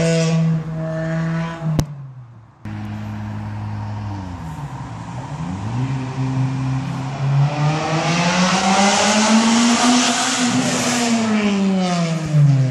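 Honda Civic Type R's engine and exhaust accelerating hard toward and past, the note climbing for several seconds and then falling in pitch as the car goes by and away. A steady engine note at the start breaks off with a click and a brief drop-out about two seconds in.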